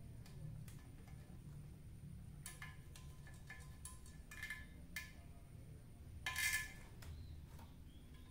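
Faint metallic clicks and small ringing clinks from a screwdriver working at the anode cap on the back of a CRT television tube, with a louder ringing scrape of metal about six seconds in.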